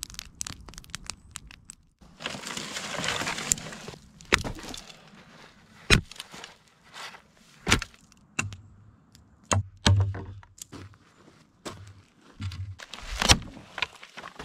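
Campfire crackling briefly, then an axe chopping dry standing deadwood: a string of sharp, loud cracks a second or two apart, with smaller knocks and wood snapping between them.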